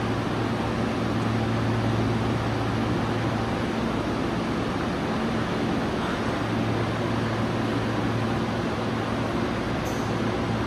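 Steady hum and air noise of a stopped Yokohama Municipal Subway 3000S train idling at the platform with its onboard equipment running. A low hum fades about four and a half seconds in and comes back about two seconds later.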